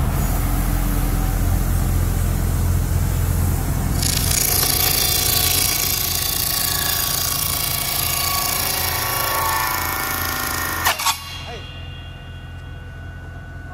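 Circular table saw running with a very smooth sound, its blade cutting through a thin plywood board from about four seconds in. Near the end of the cut there are two sharp knocks. The blade then spins on freely, quieter.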